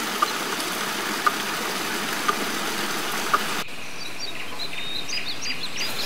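Stream water rushing around a bamboo water-powered pump, with a light click about once a second. About three and a half seconds in it cuts to a quieter background with small birds chirping.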